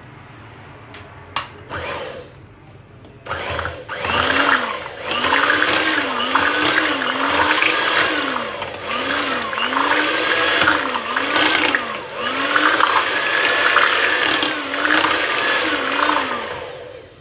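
Electric hand mixer beating whipped cream into custard, starting about three seconds in and stopping near the end, its motor whine wavering up and down about once a second. A couple of sharp clicks come before it starts.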